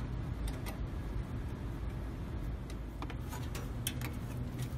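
Scattered light clicks and ticks of small metal parts being handled as a mounting bracket and its hardware are fitted to an ice machine's sheet-metal frame, over a steady low hum.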